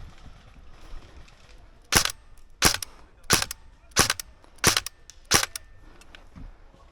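Airsoft gun firing six single shots in a steady rhythm, about one every two-thirds of a second.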